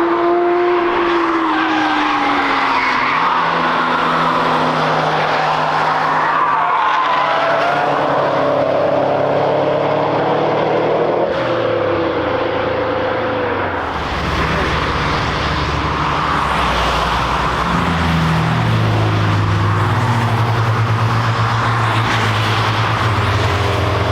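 Cars driving past at speed on a race track, their engine notes rising and falling in pitch as they go by. From about halfway through, a deeper, lower engine note takes over.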